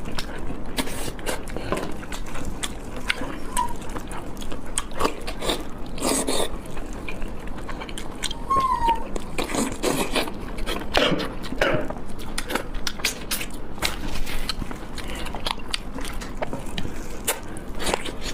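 Close-up eating sounds: a person biting and chewing food, with irregular wet clicks and crunches throughout.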